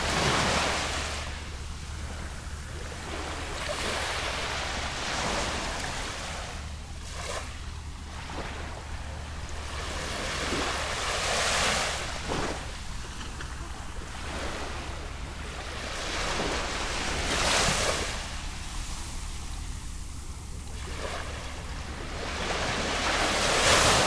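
Small waves lapping and washing onto a sandy beach: about six gentle washes that each swell and fade over a few seconds, the strongest just after the start and at the very end, over a steady low rumble.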